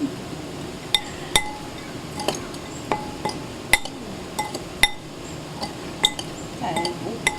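A kitchen utensil clinking against a bowl as papaya salad is mixed and pressed by hand: about a dozen sharp, irregular clinks, each with a brief ring.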